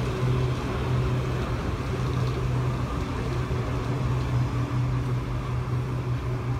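Otis Hovair air-cushion people mover cars gliding out of the station: an even rushing noise over a constant low hum.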